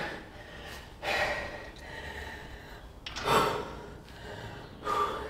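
A man breathing hard under the strain of a heavy cable pulldown set: three loud, forceful breaths about two seconds apart.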